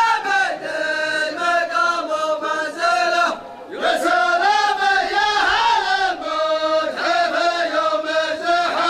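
A group of men chanting together in unison, holding long notes. There are two phrases with a short break about three and a half seconds in.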